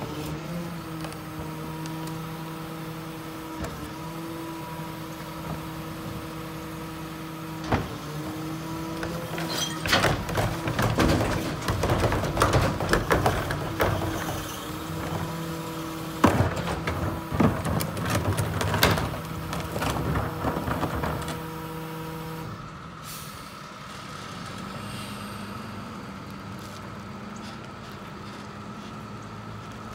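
Ez-Pack Apollo rear-loader garbage truck running with a steady mechanical whine while its cart tipper dumps a plastic cart into the hopper, with loud irregular clattering and banging of trash and cart from about a third of the way in. Past two-thirds of the way the whine stops and the truck settles to a lower, quieter running sound.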